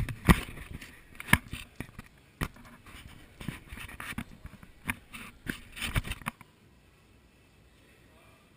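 Handling noise from a GoPro action camera being gripped and set down on a concrete floor: a string of sharp knocks and scrapes that stops about six seconds in.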